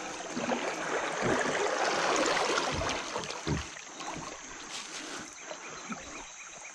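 River current rushing and splashing around a plastic kayak held in the water, swelling over the first few seconds and then easing, with a few dull knocks against the hull.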